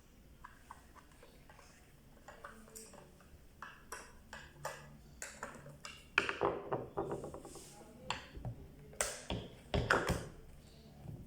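Irregular clicks, taps and knocks of small hard parts being handled during repair work on a clothes iron, with a quick run of clicks about six seconds in and a couple of louder knocks near the end.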